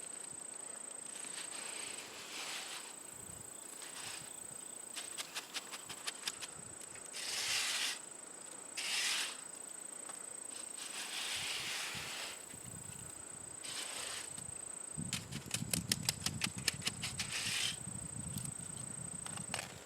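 Steady high-pitched insect drone throughout, with short scrapes, the loudest two about 7 and 9 seconds in, and runs of rapid clicking from hand work on the concrete.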